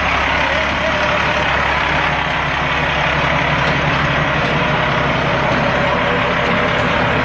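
Heavy vehicle engine idling: a steady, even low rumble.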